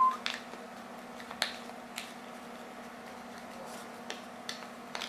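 Roll film and its paper backing being wound by hand from a 120 spool onto a 620 spool: a few light, irregular clicks and faint rustles from the spools and paper as they turn.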